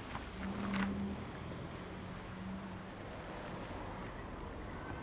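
Cars driving past one after another on a street, a steady run of tyre and engine noise that is loudest about a second in.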